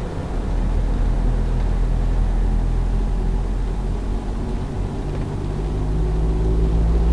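Dashcam recording of a small 4x4's engine and road noise heard from inside the cabin while driving. About five seconds in, a steadier engine note comes in and grows louder, as the engine pulls harder.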